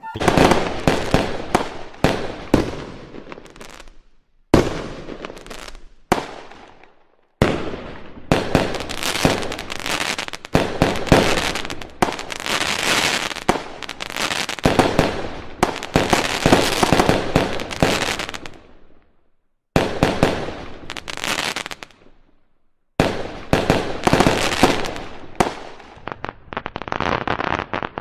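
Fireworks display: a dense string of sharp bangs and crackling, each bang fading away, with a few brief pauses of silence between volleys.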